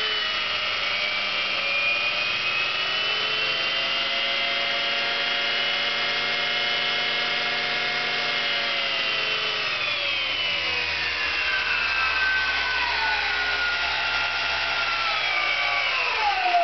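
Electric motor fitted into a scooter's CVT transmission case, on its first bench test run, spinning fast with a steady whine from the motor and belt drive while it draws close to a kilowatt. Over the last few seconds the whine slides down in pitch as it slows.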